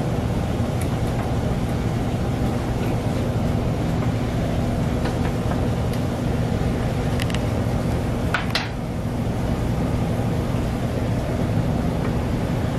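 Steady low machine hum, with a few light clicks and one short clink about eight seconds in.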